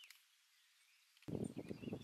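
Faint bird chirps with a few sharp clicks. About a second and a quarter in, a much louder, irregular low rumbling with quick knocks starts abruptly.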